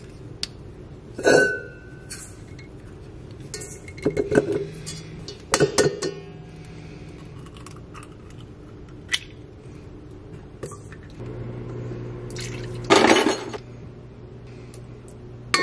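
Kitchen utensils and measuring spoons clinking and knocking against a stainless steel stand-mixer bowl while ingredients go in: a handful of separate clinks with quiet gaps between them.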